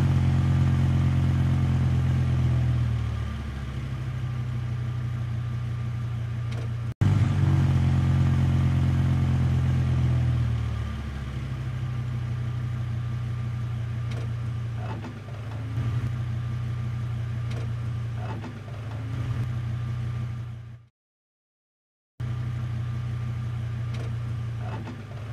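Truck engine sound effect laid over the picture. The engine runs loud for the first few seconds, then settles to a steady idle. After a cut about seven seconds in it starts again loud and settles again, and near the end it cuts out completely for about a second before resuming.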